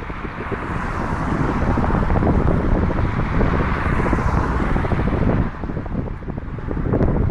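Wind buffeting a bike-mounted 360 camera's microphone while cycling: a heavy, fluttering rumble under a steady rushing hiss that swells for a few seconds in the middle.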